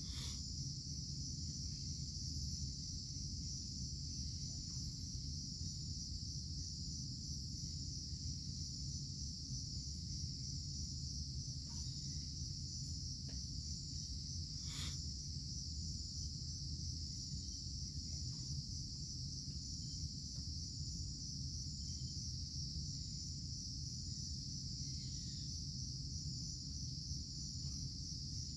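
Steady, unbroken chorus of insects, a high shrill band, over a low steady rumble; one faint click about halfway through.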